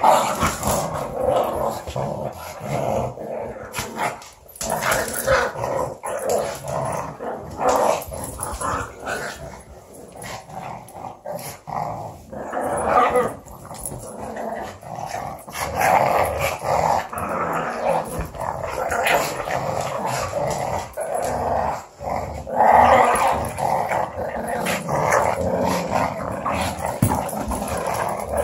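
Pug's play growling, nearly unbroken and rising and falling in loudness, during a tug-of-war with a larger dog over a rope toy.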